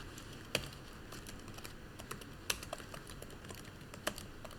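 Typing on a computer keyboard: a run of light key clicks, with a few sharper keystrokes about half a second, two and a half and four seconds in.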